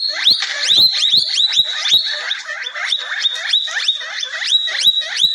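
An animal giving a fast series of short, high-pitched chirping calls, about four a second, each sweeping up and levelling off.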